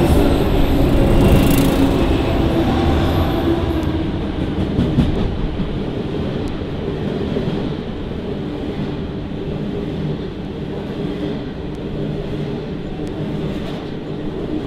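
A Pacific National 82 class diesel-electric locomotive's engine runs as it passes close by, fading over the first few seconds. Grain hopper wagons then roll past with steady wheel-on-rail noise and occasional clicks.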